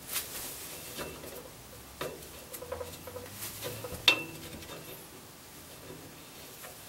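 Galvanized iron pipe elbow being screwed by hand onto the tape-wrapped threads of a steel pipe: light metal-on-metal scraping and clicking, with a sharper clink that rings briefly about four seconds in.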